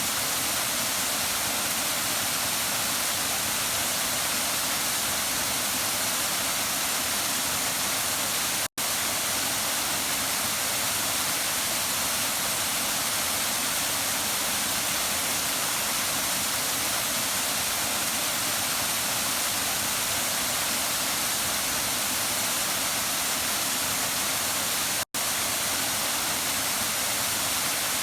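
Waterfall: a steady, even rush of falling water, broken twice by a split-second gap of silence, about a third of the way in and near the end.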